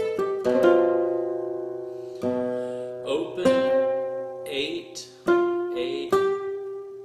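Flamenco guitar being played: a quick run of plucked notes, then chords struck about five times, each left to ring and die away.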